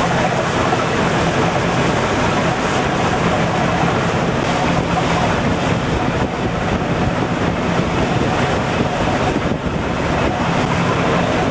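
A boat's engine running steadily with a low hum, under wind buffeting the microphone and the wash of rough sea.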